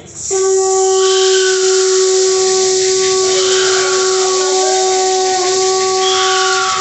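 Conch shell trumpet blown in one long, steady, breathy note that starts a fraction of a second in, wavers briefly about five seconds in and breaks for a moment near the end.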